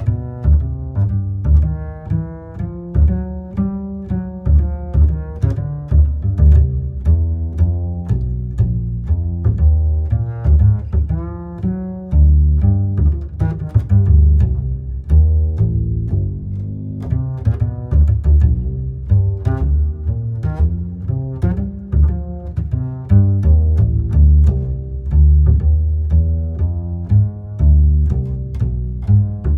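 Background music: an instrumental piece with a deep, prominent bass line and a melody of short, regularly struck notes.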